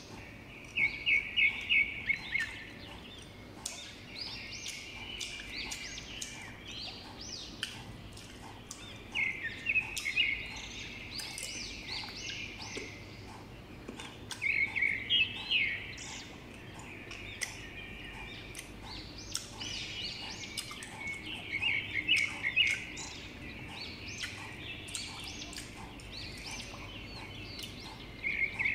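A bird chirps in bursts of quick, high repeated notes, each burst lasting a second or two and coming back about every five or six seconds. Under it are faint close-up chewing sounds of sour unripe mango slices being eaten.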